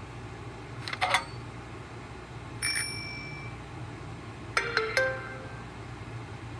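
Three short, different Samsung Galaxy Tab 1 notification chimes played in turn with pauses between them: a quick double ding about a second in, a high bell-like tone around three seconds, and a two-note chime near five seconds, over a steady low hum.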